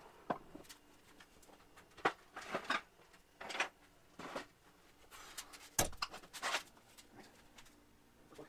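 Scattered knocks, clicks and clanks of metal parts being handled while a Bridgeport milling machine is taken apart, mixed with footsteps; one heavier thump comes a little before six seconds in.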